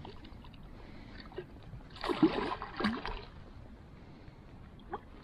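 A hooked trout splashing and thrashing at the surface as it is played close to the landing net: two splashes about two and three seconds in, and a small one near the end.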